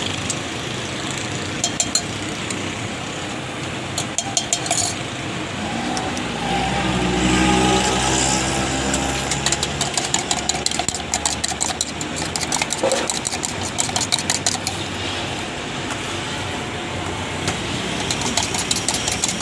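A metal spoon beating eggs in a steel mug, clinking rapidly against the metal, the clinks thickest in the second half. Street traffic runs underneath, with a vehicle passing near the middle.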